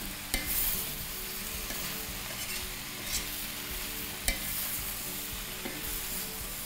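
Chopped carrots, onion and bell peppers sizzling as they fry in a little oil in a stainless steel pan, stirred with a wooden spoon that knocks sharply against the pan twice.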